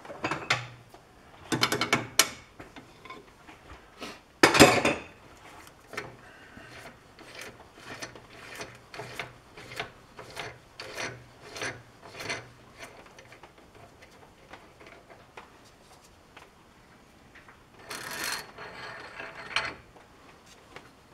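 Metal tooling and parts being handled and adjusted in a machine shop: bursts of rubbing and scraping, then a run of sharp clicks about two a second, and another scraping burst near the end.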